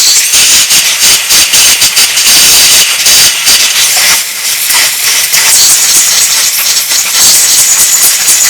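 Compressed air hissing loudly and steadily from a blow gun, its pitch fluttering a little, as it blows out the orifices of an outboard carburetor's float bowl.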